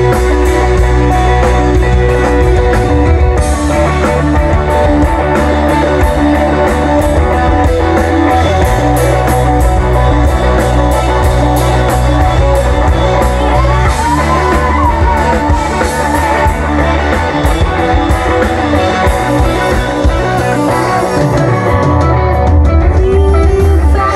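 Live rock band playing: electric guitars and bass over a drum kit keeping a steady beat, at full volume.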